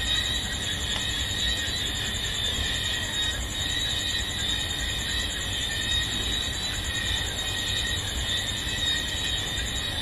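Evening insect chorus: steady high-pitched shrilling with a fast, even pulsing trill at the top, over a low steady rumble.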